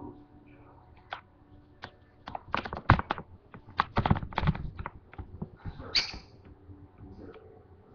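Lovebird making a run of short, sharp clicking and chattering sounds, dense in the middle, with a louder high chirp about six seconds in.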